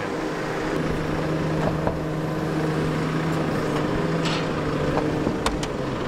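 A telehandler's diesel engine running steadily at idle, with a few light clicks.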